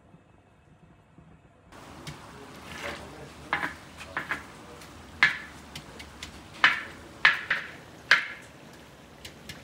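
A metal skimmer knocking and scraping against a large kazan of pilaf as the rice and broth are worked. There is a string of sharp clinks, one or two a second, starting about two seconds in.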